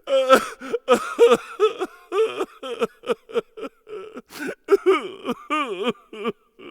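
Electronic filter-sweep sound effect: a rapid string of short, choppy synthesized tones whose pitch and tone wobble and bend up and down, over a faint steady hum, stopping abruptly at the end.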